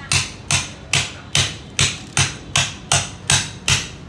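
A cleaver wedged in a giant flathead catfish is hammered down through the fish's backbone by blows from a second cleaver on its spine: about ten steady, evenly spaced strikes, two to three a second, stopping near the end.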